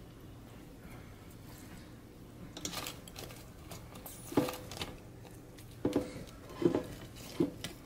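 A metal fork tapping and scraping against the air fryer basket while turning chicken wings: about five sharp clinks in the second half, several with a brief metallic ring.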